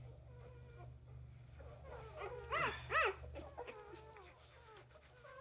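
Newborn Newfypoo puppies squeaking and crying in short, high, wavering squeals, with two louder rising-and-falling cries about two and a half and three seconds in.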